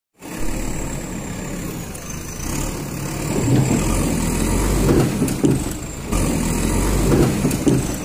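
JCB backhoe loader's diesel engine running steadily, getting louder about three seconds in, with several sharp knocks and clanks as the front bucket works.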